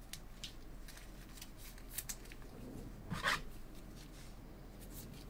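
Trading card and plastic card holder being handled by gloved hands: faint scattered clicks and rustles, with one louder short swish about three seconds in.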